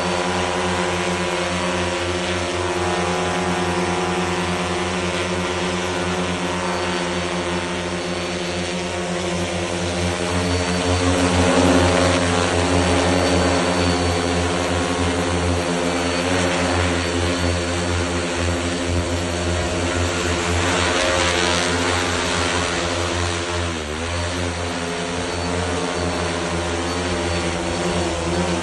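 10-litre four-rotor agricultural sprayer drone hovering close by, its propellers giving a steady whirring hum with several pitched tones. It grows a little louder about twelve seconds in. Near twenty-four seconds the pitch dips briefly and comes back up as the motors ease off and throttle up again.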